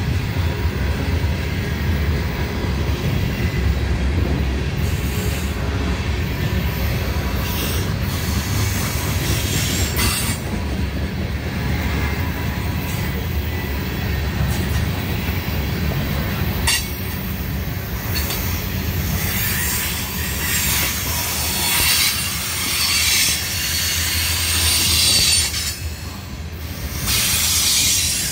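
Norfolk Southern covered hopper cars of a grain train rolling past at speed: a steady rumble of steel wheels on the rails, with occasional sharp clicks.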